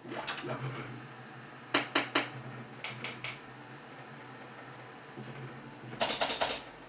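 Vintage German Komet wall slot machines running: clusters of sharp mechanical clicks from the reels stopping, three quick ones about two seconds in and four near the end, over a steady low machine hum.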